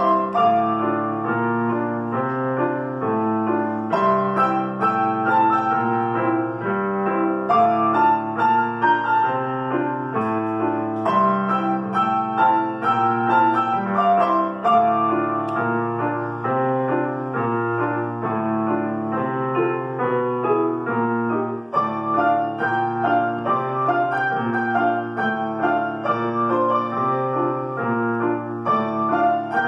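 Three pianos playing a piece together, a continuous flow of chords and melody with a brief break about two-thirds of the way through.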